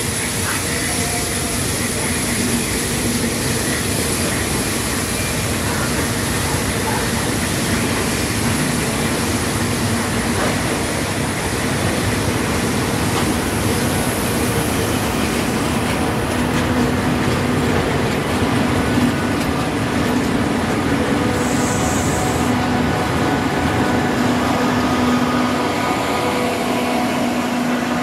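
Passenger coaches of a steam-hauled train rolling past on the rails: a steady rumble of wheels on track.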